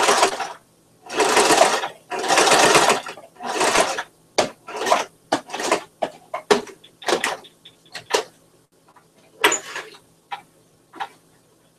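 Electric domestic sewing machine stitching fabric in stop-start runs: several runs of about a second in the first four seconds, then shorter spurts and clicks that die away by about ten seconds.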